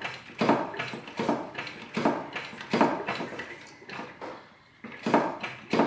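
Toyota Corolla brake pedal being pumped repeatedly, about one stroke every three-quarters of a second, with a short pause about four seconds in. The hydraulic pressure is forcing a seized front caliper piston out of its bore.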